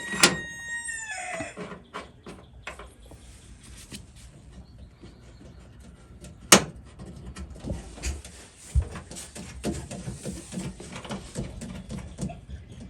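A rooster crowing, one call held about a second that falls off at the end, followed by scattered light clicks and knocks, with one sharp click about six and a half seconds in.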